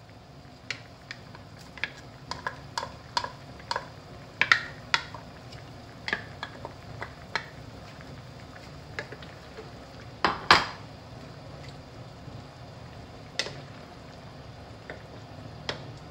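Wooden spatula clicking and knocking against a bowl and a non-stick pan while chopped green onion is scraped in and stirred through mapo tofu. There is a quick run of light taps in the first five seconds, a louder double knock about ten seconds in, and a few single taps after.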